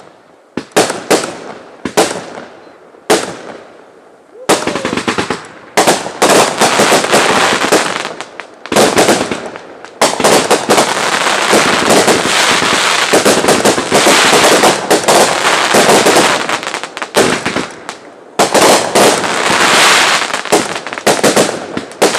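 Fireworks bursting overhead. A few separate sharp bangs come in the first few seconds, then a rapid string of bangs and crackling from about four seconds in. This turns nearly continuous from about ten to seventeen seconds in, with another dense flurry near the end.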